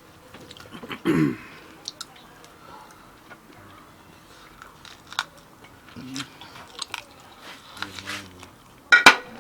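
A person chewing and biting into barbecued meat close to the microphone: scattered wet clicks and crunches. A short falling "mmm" comes about a second in, and a sharp louder click near the end.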